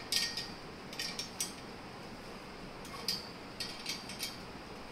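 Light metallic clinks and scrapes of a small hand tool turning a screw in a chrome-plated steel spring cot frame as it is tightened: short sharp clicks in a few clusters, about a second in and again about three to four seconds in.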